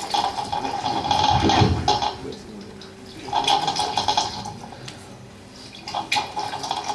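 Water poured from a plastic bottle into cupped hands and splashed onto the mouth and face during ablution, in three bursts a couple of seconds apart.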